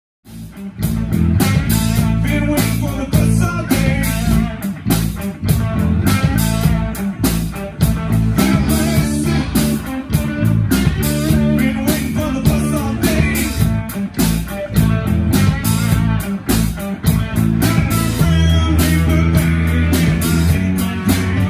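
Live blues-rock band playing: electric guitar, electric bass and a Tama drum kit keeping a steady beat, with the guitar amplified through a Turbosound iP500 column PA. The band starts abruptly, right at the beginning.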